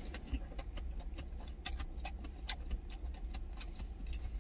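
A person eating from a stainless steel lunch container: sipping and chewing, with many sharp, irregular clicks, over a steady low rumble.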